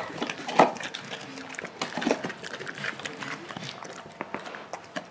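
Small dogs chewing tiny training treats: scattered soft crunching clicks.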